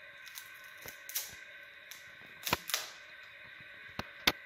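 Sharp crunching clicks of teeth biting and chewing on a hard slice of food, about five strokes, the loudest a pair about two and a half seconds in and another pair just after four seconds.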